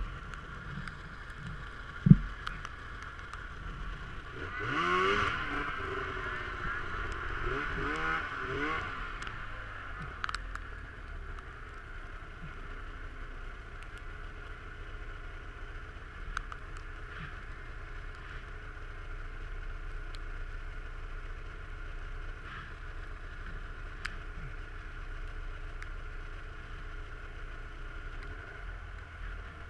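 Snowmobile engine running steadily, its pitch rising and falling for a few seconds about five seconds in, with a sharp knock about two seconds in.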